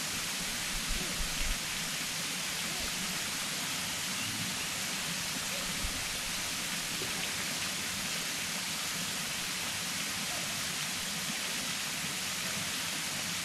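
Steady hiss of falling or rushing water, even throughout, with a few faint knocks about a second in.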